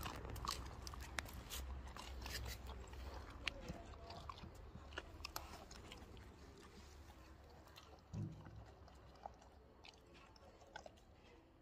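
A dog crunching and chewing a crumbly treat off a tile floor, with crisp clicks that come thick at first and thin out towards the end. A brief low thump sounds about eight seconds in.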